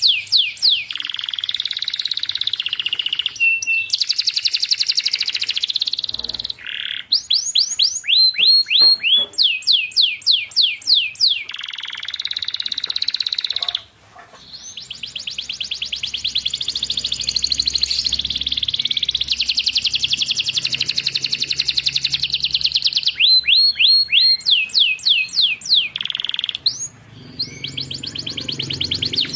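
Domestic canary singing: phrases of rapid, repeated falling whistled notes with brief gaps between them, and a long fast trill in the middle.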